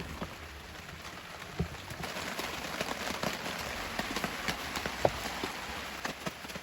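Crackling and popping over a wood fire: irregular sharp snaps over a steady hiss that grows a little stronger about two seconds in.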